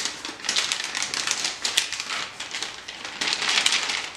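Plastic MRE flameless-heater bag and food pouch crinkling and rustling in the hands as the pouch is pushed into the bag, in irregular bursts of crackles.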